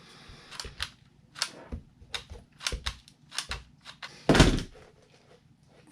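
Irregular small clicks and knocks from handling an RC truck tire and its parts during gluing, with one louder thump about four and a half seconds in.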